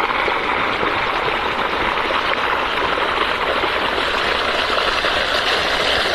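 Steady rushing of irrigation water flowing through the furrows of a flood-watered field.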